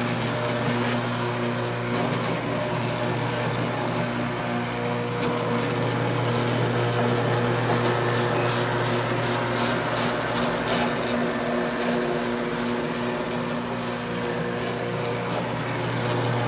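Single-disc rotary floor machine running steadily, its green scrubbing pad spinning on a wet, soapy vinyl floor: a steady low motor hum with a broad scrubbing hiss.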